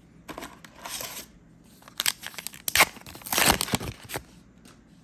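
A trading-card booster pack's wrapper being torn open and crinkled, in several crackling bursts, the loudest from about two seconds in.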